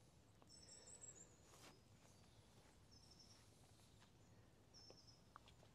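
Near silence: faint outdoor ambience with a few brief, faint high bird chirps.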